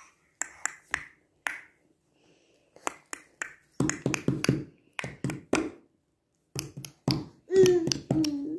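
A baby's hands slapping on a hardwood floor as it crawls: a string of sharp pats, many with a dull thud, coming thicker from about four seconds in. Near the end the baby vocalizes.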